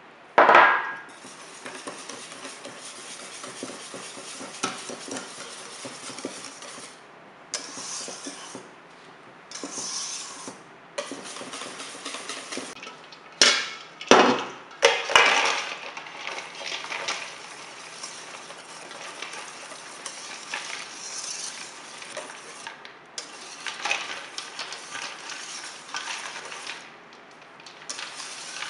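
A wire balloon whisk stirring a thick mousse base in a stainless steel bowl, a steady scraping hiss against the metal with short pauses. A sharp metal clank comes just after the start, and several loud clanks come about halfway, as the bowl is set down over a bowl of ice water.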